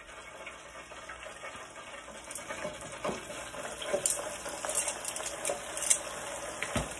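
Chicken wings deep-frying in hot oil in an electric deep fryer: a steady sizzle with many small crackles and pops, growing louder about three seconds in as the batch goes into the oil.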